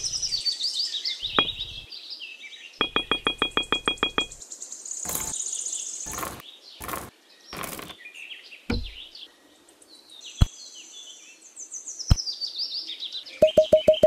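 Birds chirping, with a rapid, even run of clicks a few seconds in and several sharp knocks in the middle. Near the end a fast pulsing tone starts up.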